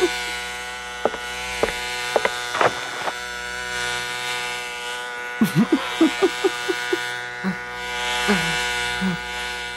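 Electric hair clippers buzzing steadily, with short squeaky sliding sounds over the buzz, a quick run of them just past halfway.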